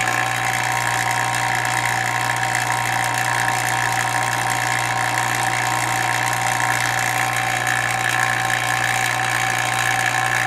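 Vacuum pump running steadily, drawing down a mini closed-loop extractor with both valves shut; a constant hum with a few steady higher tones.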